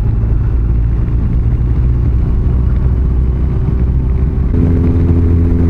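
Touring motorcycle cruising on a paved road: a steady low engine and road rumble. About four and a half seconds in, it changes to a smoother hum with a few steady held tones.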